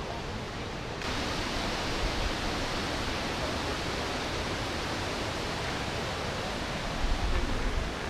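Steady rushing noise of waterfalls and cascades below, stepping up about a second in, with some low rumbling near the end.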